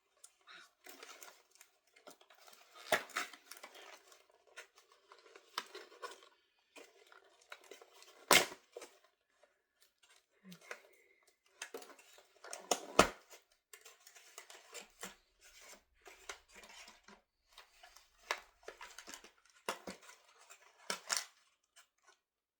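Doll box packaging being handled and cut open: scattered rustling of cardboard and plastic with sharp clicks, the loudest about 8 and 13 seconds in.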